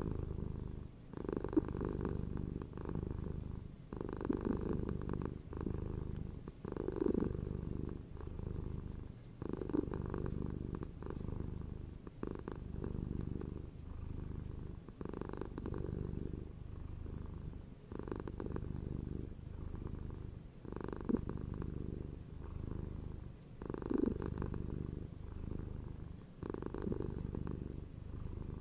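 Domestic cat purring close to the microphone: a steady low rumble that swells and fades with each breath.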